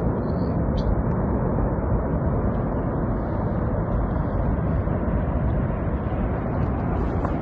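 Avalanche rumbling: a steady, dense low roar of snow that holds at much the same level throughout.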